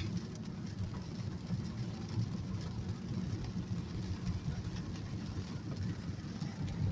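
Steady low rumble of a car, heard from inside the cabin, with a faint hiss of rain on the car over it.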